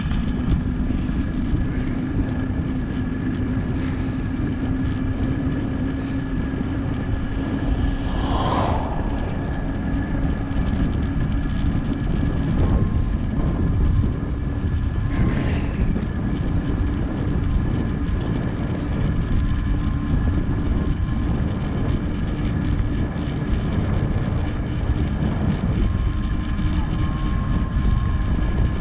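Wind rush and road noise from a bicycle coasting downhill, heard on a GoPro: a loud, steady low rush with a faint steady hum. Two short swishing sounds come about 8 and 15 seconds in.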